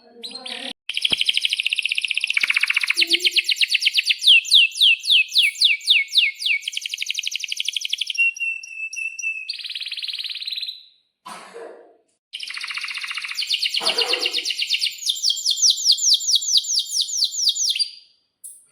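Domestic canary singing long rolls of rapid repeated chirps, in two runs that each last several seconds, with a held whistle and a short buzzy note between them and a brief pause midway.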